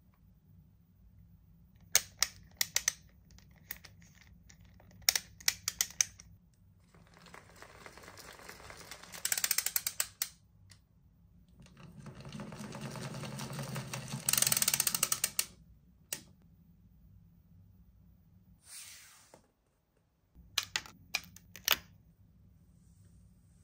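Hands handling a plastic toy doll and its plastic accessory: several quick clusters of sharp plastic clicks, with two longer stretches of rubbing noise in between.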